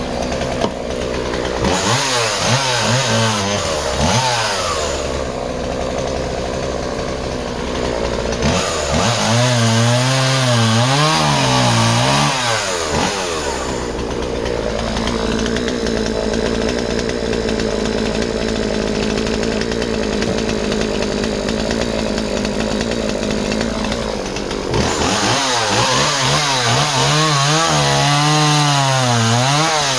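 Two-stroke chainsaw running hard through a log. Its engine note holds steady for stretches and, in three spells of cutting, wavers and dips under load before picking up again.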